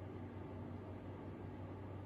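Steady low hum and hiss of room tone, with no distinct event.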